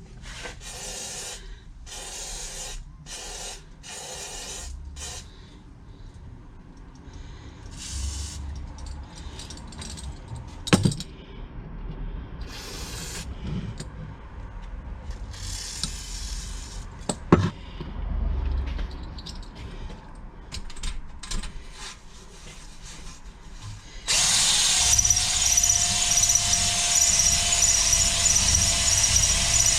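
Scattered short hissing bursts and two sharp knocks, then, about 24 s in, an electric drill starts and runs steadily, spinning a cylinder hone in the bore of a 12 hp Briggs & Stratton engine to put cross-hatching back on the cylinder wall.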